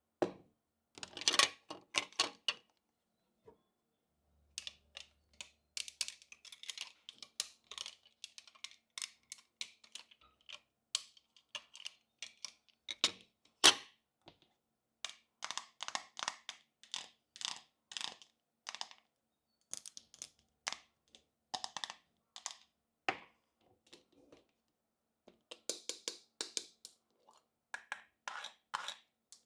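Small plastic toy kitchen pieces and packaging being handled: an irregular run of light clicks, taps and crinkles, with a few short pauses.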